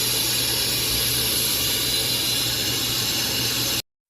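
Brake lathe running and machining a brake rotor: a steady motor hum under an even hiss. It cuts off abruptly near the end.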